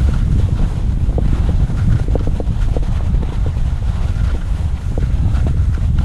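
Wind rumbling steadily on the microphone during a downhill ski run, with skis scraping and ticking over rough, sun-cupped spring snow.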